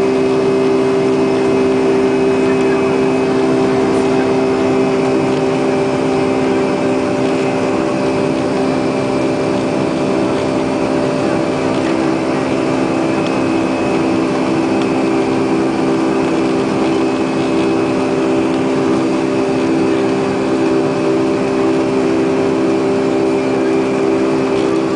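Boeing 757 jet engine running steadily at low thrust while the airliner taxis, heard inside the cabin as a constant drone with a steady hum in it.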